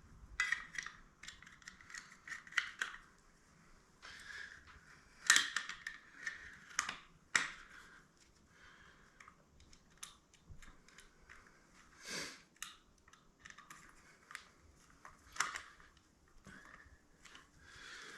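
Scattered small clicks, taps and knocks of tools and parts being handled, with a few sharper knocks about five to seven seconds in.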